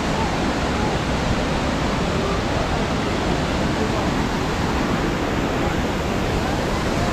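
Steady rush of a mountain stream cascading over rocks below a waterfall, with faint voices of people in the background.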